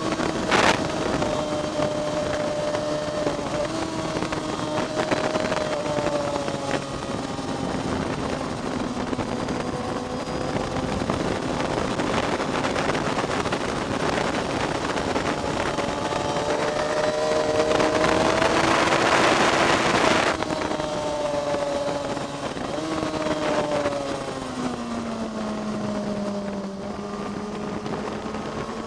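Vehicle engine lapping a racetrack, heard on board: the engine note climbs and falls as it accelerates and slows for corners, with a louder rush of wind and engine around two-thirds of the way through.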